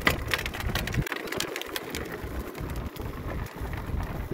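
Wind buffeting a phone's microphone: a low gusting rumble that drops out and returns every fraction of a second, with a few light knocks about a second in.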